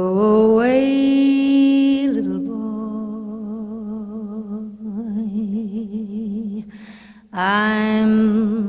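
Slow music begins after a moment of silence: long held notes with a wavering vibrato over a steady low drone, with a brief break near the end before the next phrase starts.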